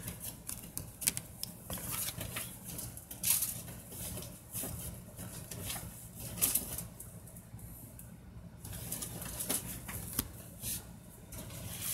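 Irregular light clicks and rustles over a low steady hum.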